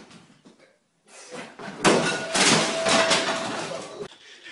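A person swinging on a dance pole crashes down with a sudden loud impact about two seconds in, followed by about two seconds of noisy scuffling that fades out.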